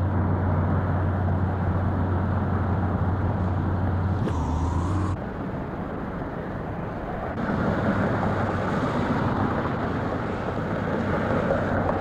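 Road traffic and engine noise: a steady low engine drone with a brief rising whine about four seconds in, then lighter traffic noise after a sudden drop, growing louder again from about seven seconds.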